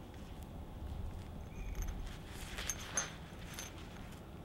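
A few faint clicks and scrapes as two small plasma-cut steel pieces are handled in leather work gloves, clustered in the second half.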